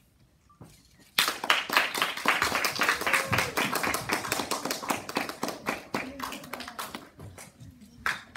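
Audience applauding. It starts suddenly about a second in, holds loud and thick, and thins out toward the end.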